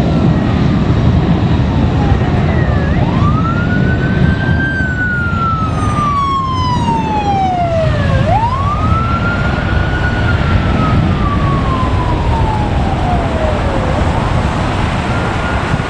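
Los Angeles Fire Department paramedic ambulance's siren sounding a slow wail, each cycle rising quickly and then falling over about five seconds, about three times, as the ambulance passes close by and drives away. A steady low rumble of traffic runs underneath.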